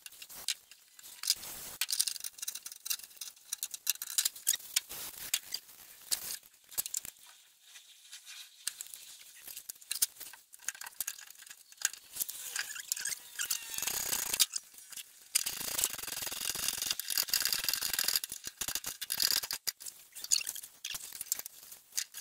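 Small clicks, scrapes and rustling as gloved hands and small tools handle the VW Bus gear shifter parts while it is cleaned, greased and put back together. The handling grows busier and scratchier for a few seconds near the middle and again later on.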